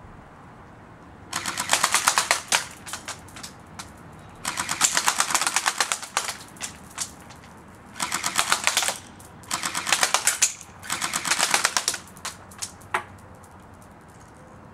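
Battery-powered M14 airsoft rifle firing fully automatic: about five short bursts of rapid clicking shots, with a couple of single shots near the end.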